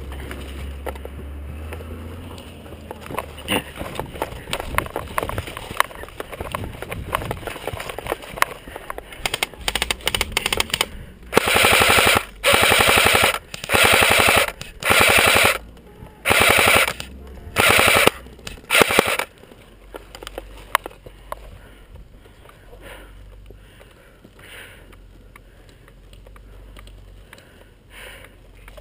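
Airsoft rifle firing about seven short full-auto bursts in quick succession, each about a second long, after a stretch of fainter scattered clicks.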